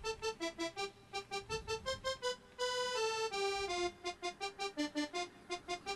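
Music: a quick melody of short, detached notes, with a few longer held notes about three seconds in.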